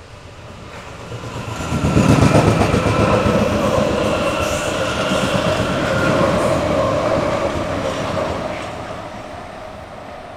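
Hamburg S-Bahn class 474 electric multiple unit passing close by and running away, its wheels rumbling on the rails under a steady whine. It gets loud suddenly about two seconds in and fades after about eight seconds.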